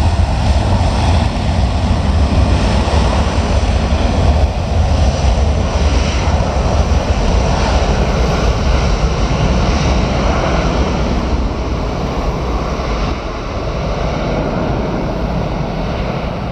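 Boeing C-17A Globemaster III's four Pratt & Whitney F117 turbofans at take-off power during the take-off roll: loud, steady jet noise with a deep low rumble, slowly fading over the last few seconds as the aircraft draws away.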